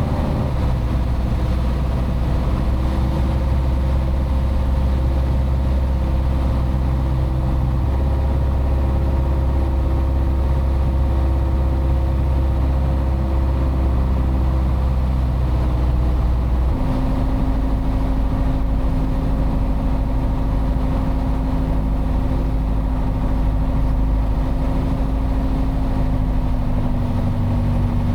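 Piper Archer's piston engine and propeller running steadily, with a sudden shift in the engine note about 17 seconds in: a power change during the approach and landing.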